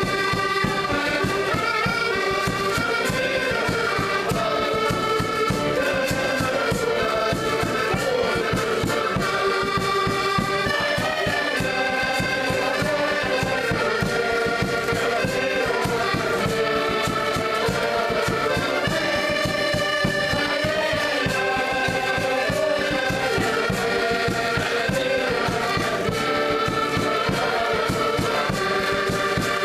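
An ensemble of several accordions playing a lively folk tune together, with a bass drum beating time under them.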